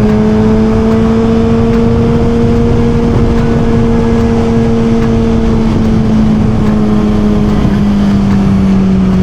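Suzuki GSX-R1000 inline-four engine running at a steady cruising speed, its note easing slightly lower near the end, under heavy wind rush on the helmet microphone.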